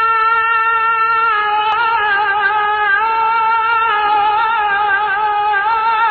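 Music: a single melodic line on long held notes, steady for about the first second, then wavering with vibrato and small ornamental turns.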